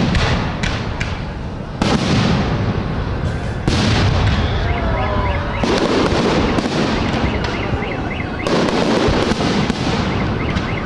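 Aerial firework shells bursting overhead in quick succession, a sudden boom every second or two with a long rumbling tail. Near the end comes a crackle of many small pops.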